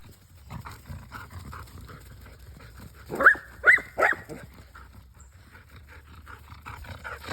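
Puppies at play: three short, high yelps in quick succession about three seconds in, over faint scuffling.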